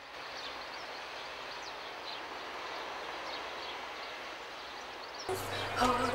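Outdoor street ambience: a steady even background hiss with faint, scattered bird chirps. Music comes in about five seconds in.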